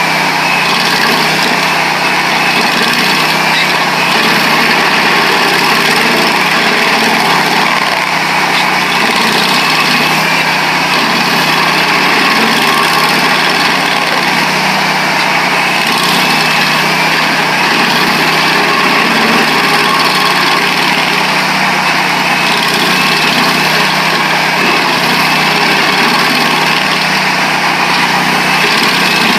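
Vermeer 222 stump grinder with a Honda engine running steadily at full throttle. Its cutter wheel, missing half its teeth, is grinding into a hard old pine stump.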